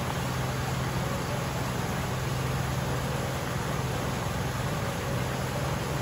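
Fast, muddy stream rushing over a low drop and past a fallen log: a steady, unbroken rush of water with a low rumble beneath.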